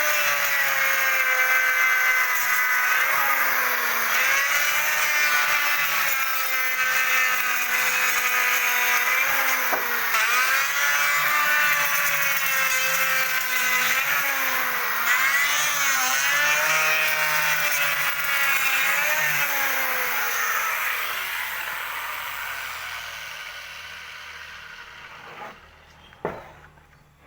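Electric wood router cutting wood, its motor pitch dipping and recovering again and again as the bit takes load. About twenty seconds in the motor winds down and stops, followed by a few sharp clicks.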